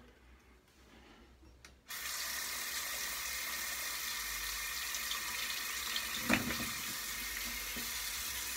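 Bathroom tap turned on about two seconds in and left running steadily into the sink, with one short knock about four seconds later.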